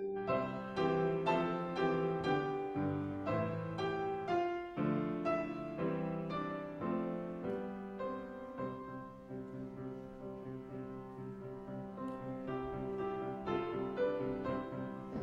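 Piano playing slow chords and melody, the notes struck and left to ring, growing a little softer about halfway through.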